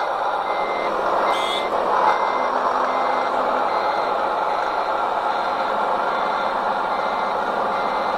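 Reversing beeper of a radio-controlled Mercedes-Benz Arocs tipper truck's sound module, beeping steadily at one pitch about one and a half times a second as the model truck backs up. A steady rushing noise runs underneath.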